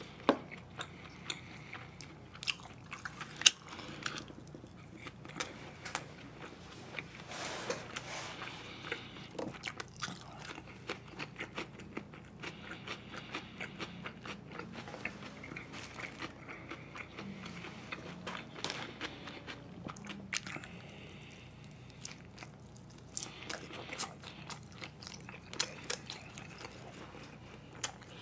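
Close-miked chewing: a man chewing mouthfuls of food, with many short sharp clicks and wet mouth smacks throughout.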